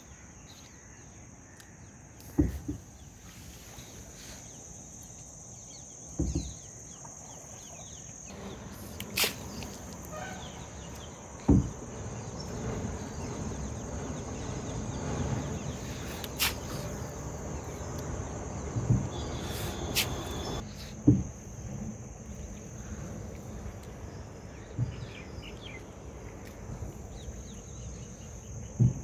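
Crickets trilling steadily. Several dull knocks sound on the wooden boat, and in the middle a stretch of water sloshing and splashing as the cast net is worked in.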